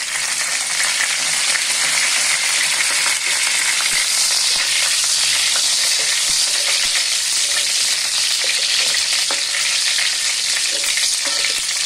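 Whole spices (cinnamon, cardamom, bay leaves, dried red chilies) sizzling steadily in hot oil, being lightly fried as the tempering step of a curry. A wooden spatula stirs them, with a few faint taps and scrapes in the second half.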